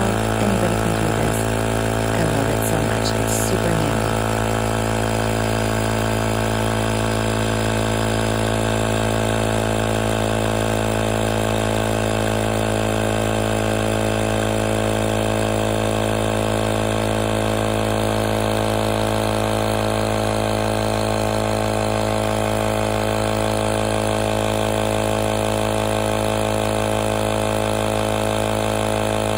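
Cordless portable tire inflator's electric piston compressor running steadily while pumping air, a constant even-pitched drone.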